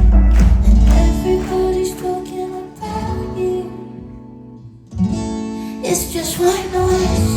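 Live pop performance: a woman singing over guitar and band. The music thins to a quiet stretch around the middle, then comes back in suddenly and loudly about five seconds in.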